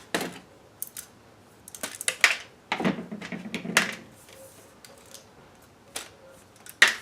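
Irregular metallic clicks, taps and rattles from a stock Chrysler AM/FM CD/cassette head unit's metal chassis and the hand tools used to take it apart. A busier run of clatter comes from about two to four seconds in.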